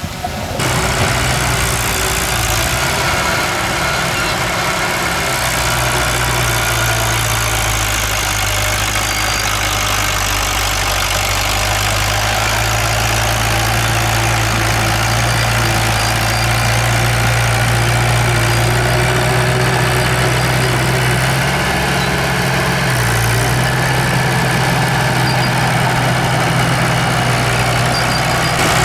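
Heavy diesel engine of an earthmoving machine running steadily, a low even drone that starts abruptly about half a second in.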